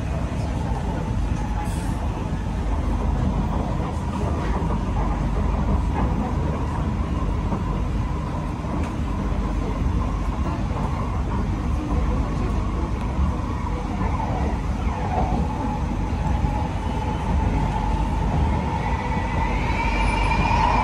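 Kawasaki–CRRC Qingdao Sifang C151B metro train running between stations, heard inside the carriage: a steady low rumble of wheels on track with a constant whine, which grows louder near the end.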